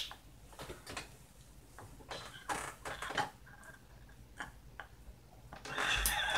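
Two women laughing hard but mostly silently: faint breathy gasps and scattered small clicks, then a louder, higher laugh near the end.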